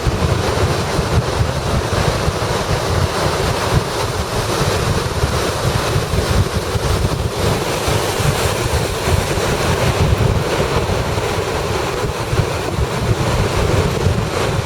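Storm surf on Lake Superior crashing against the beach in a gale, with strong wind buffeting the microphone into a steady rumble.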